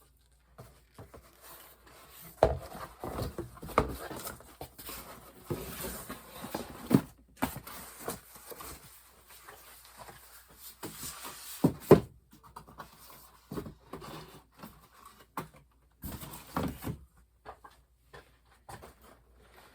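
Fan blades and their packaging being handled and set aside: irregular knocks, clatter and rustling, with a few sharper knocks among them.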